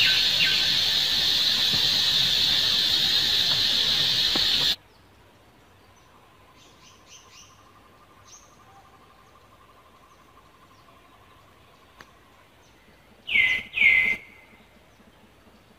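A steady, high insect drone with repeated short chirps, which cuts off suddenly about five seconds in. After that the background is quiet, with faint chirps, until two short, loud, high calls slide down in pitch near the end.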